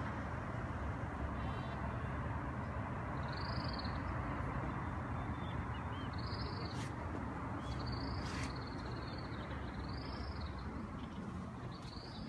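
A bird calling repeatedly: short, arched high calls every second or two over steady background noise, with a couple of faint clicks near the middle.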